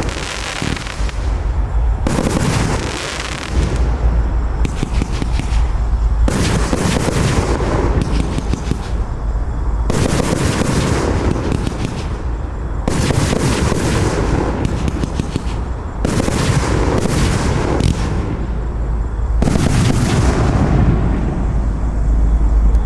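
A 25–30 mm compound fireworks cake firing rapid volleys: strings of launch thumps and bursting booms with crackle, coming in waves a few seconds long that follow one another closely.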